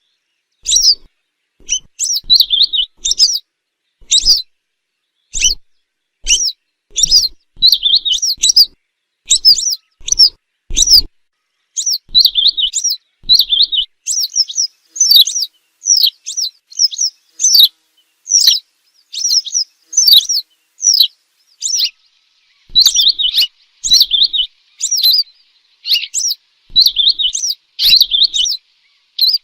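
Western yellow wagtail calling: short, high, down-slurred notes given in quick clusters of two to five, with brief silent pauses between clusters.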